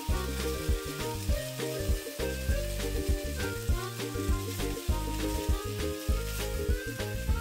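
Egg-soaked baguette slices (French toast) sizzling in a frying pan over low heat. Background music with a steady beat plays over the frying.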